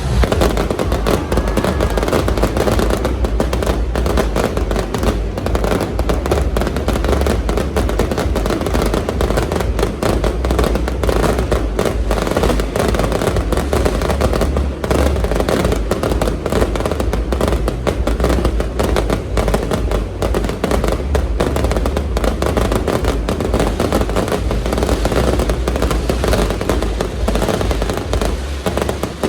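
Fireworks display at full intensity: a rapid, continuous barrage of bangs and crackles, many a second, over a heavy low rumble.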